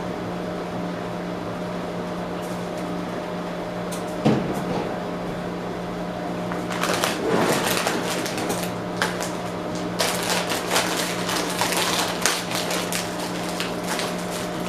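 Quick irregular clicks and crackles, dense from about seven seconds in, with a single knock about four seconds in, over a steady electrical hum.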